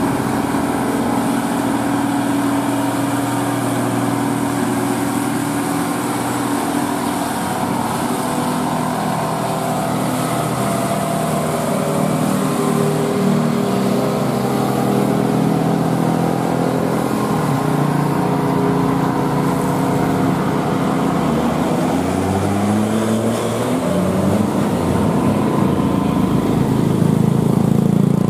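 Heavy diesel truck engines running under load on a steep climb, with the engine note rising and falling over the second half amid passing traffic.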